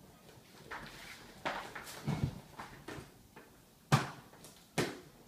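Handling of a new motocross boot: rustling and scraping, then two sharp clacks under a second apart near the end, the loudest sounds.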